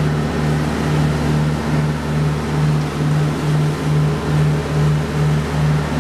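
Motorboat engine running underway, a steady low drone that throbs evenly about two and a half times a second, over the rushing wash of the wake and wind.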